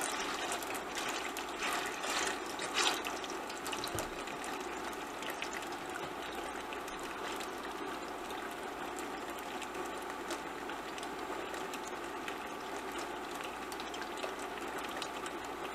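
Bologna slices sizzling in hot oil in a stainless steel frying pan, a steady crackling fry. A few light knocks in the first three seconds as tongs turn the slices in the pan.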